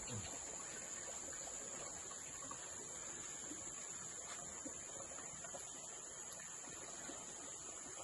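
Steady, high-pitched insect chorus.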